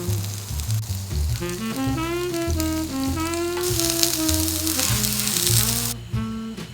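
Food sizzling in a hot pan, loudest in the second half and cutting off abruptly about a second before the end, over background jazz music with a horn melody.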